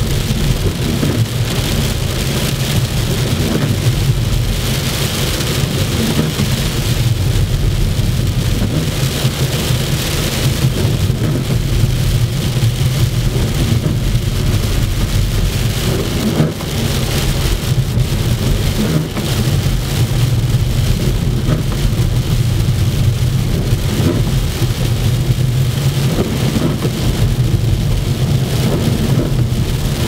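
Car cabin noise while driving on a wet, slushy snow-covered road: a steady low engine and road rumble with the hiss of the tyres on slush.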